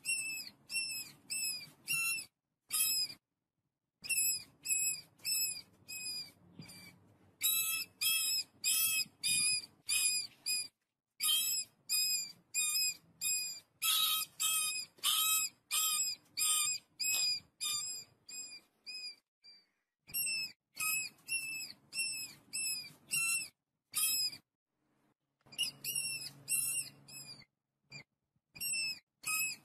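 Mice squeaking: short high-pitched chirps repeated about two to three times a second, in runs broken by brief pauses.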